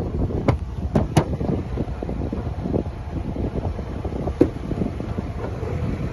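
Wind buffeting the microphone as a steady low rumble, with a few sharp clicks: three close together in the first second or so and another about four seconds in.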